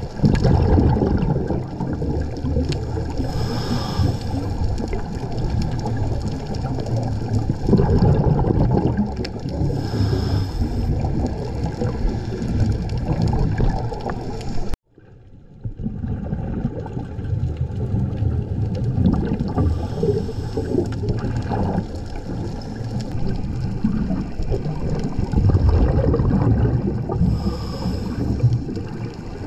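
Underwater recording of scuba diving: a continuous low rumbling wash of water, with a burst of bubbling about every six or seven seconds as exhaled air leaves a diver's regulator. The sound cuts out for a moment about halfway.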